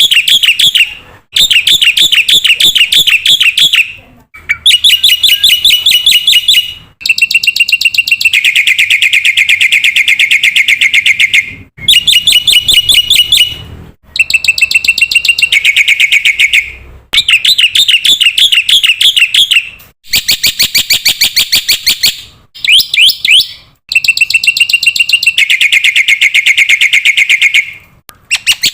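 Black-winged myna (jalak putih) singing loud, rapid rattling trills, in phrases of a few seconds each broken by short pauses.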